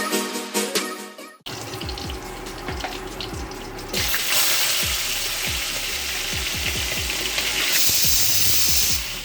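Marinated chicken pieces frying in hot oil on high heat, a steady sizzle that gets much louder about four seconds in. Background music with a repeating low beat runs under it.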